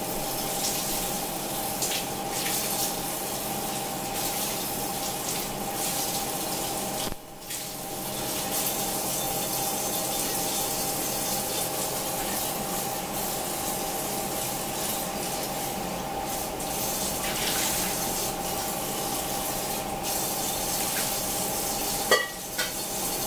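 Kitchen tap running steadily into a sink or pot, over a steady hum. A brief dip a little after seven seconds, and a sharp clink near the end.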